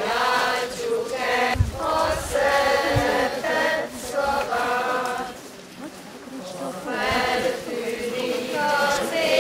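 A group of high voices singing a song in unison, with held notes in short phrases and a brief pause in the middle. Two low thumps, likely handling noise on the microphone, come about one and a half and three seconds in.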